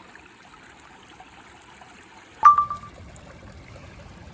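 Creek water trickling steadily. About two and a half seconds in, a single sharp clink rings briefly as a handled rock knocks against something hard.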